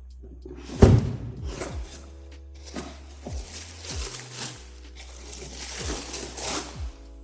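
Electronic background music with a deep sustained bass, punchy kick drums and a crisp high hi-hat layer.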